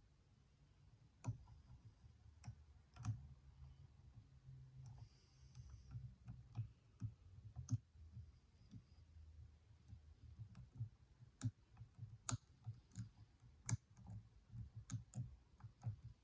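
Faint, irregular clicks of a lock pick and tension wrench working the pins inside a Stanley padlock's keyway, with a steady low hum underneath.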